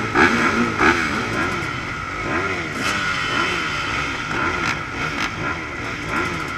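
Dirt bike engines revving in repeated throttle blips, each rising and falling, several overlapping, over a steady engine drone, with a few short knocks.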